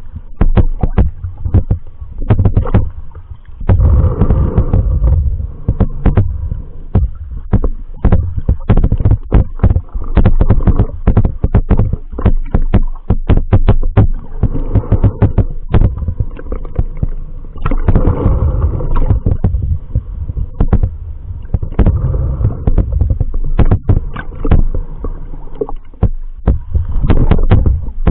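Muffled underwater sound picked up through a waterproof action-camera housing as it moves through shallow sea water: low rumbling surges of water every few seconds, with many sharp clicks and knocks throughout.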